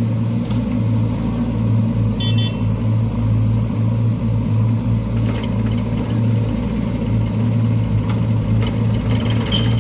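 Diesel engines of a JCB 3DX backhoe loader and a farm tractor running steadily, a deep even hum as the backhoe works.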